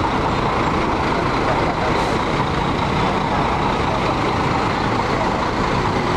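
Mercedes-Benz OC 500 RF coach's rear-mounted six-cylinder diesel engine running steadily as the bus pulls away slowly and passes close by.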